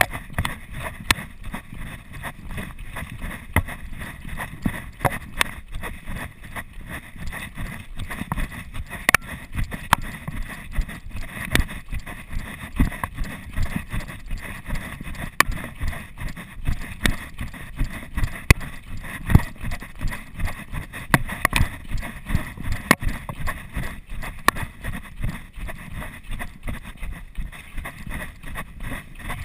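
Quick footsteps of a person going down a dirt trail, a steady run of footfalls about two to three a second, picked up by a chest-mounted GoPro Hero 2 along with the knocking of its mount.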